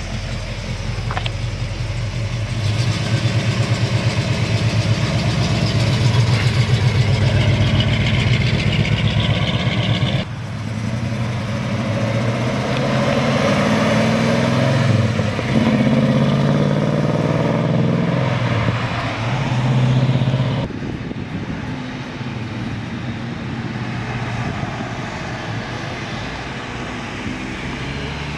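The 401 cubic-inch V8 of a 1973 AMC Javelin AMX, breathing through headers and dual exhaust, pulling away and driving past, heard from the roadside. The engine note swells as it accelerates and changes abruptly twice where takes are cut together.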